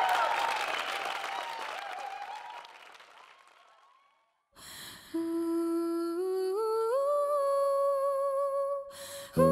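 Music and applause fade out over the first few seconds to a brief silence; then a voice hums a slow melody, holding each note and stepping upward in pitch, before a guitar song comes in at the very end.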